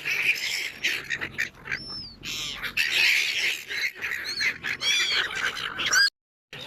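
A flock of seagulls squawking and screeching, many high, arching calls overlapping one another, cutting off suddenly for a moment near the end.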